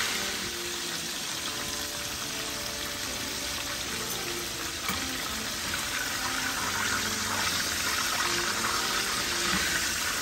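Marinated chicken pieces sizzling steadily in shallow hot oil in a small frying pan as they are turned with a spoon.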